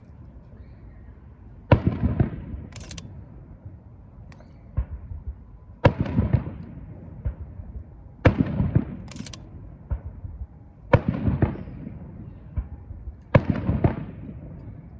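Aerial firework shells bursting in a rapid-fire sequence: five loud booms, one about every two and a half seconds, each trailing off in a rumbling echo, with fainter pops between them.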